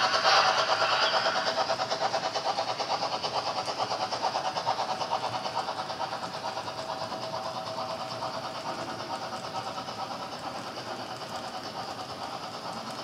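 Model steam locomotive with a train of tank cars running along the track: a steady mechanical whirring with a rapid, even pulsing. It fades gradually as the train draws away.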